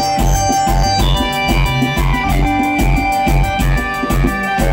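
Live band playing: drum kit, electric guitars and keyboard, with held keyboard notes over a steady beat of about two low hits a second.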